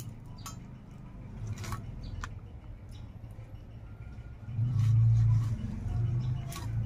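A low engine rumble that swells louder about halfway through, with scattered light clicks and scrapes of fish being cut on a boti blade.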